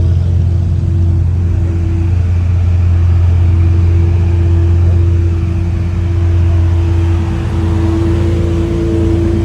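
A high-performance car's engine running at steady revs: a loud, steady deep drone with a constant higher tone above it.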